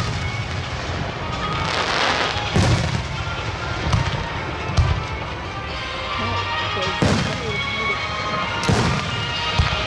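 Aerial fireworks shells bursting overhead: about half a dozen sharp booms, one every second or two, over a steady background hum of noise.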